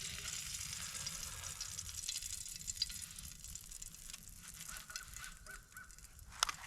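Perch fillets sizzling in butter in a frying pan, the sizzle slowly dying down. About two-thirds of the way in comes a quick run of short pitched calls, and a sharp click sounds near the end.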